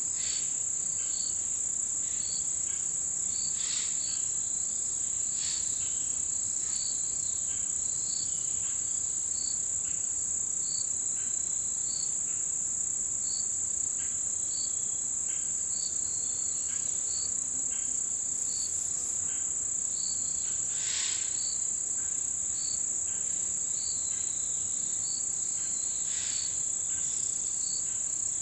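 Chorus of autumn insects: a steady high-pitched trill, with short chirps repeating about once a second and a few brief sharp calls over it.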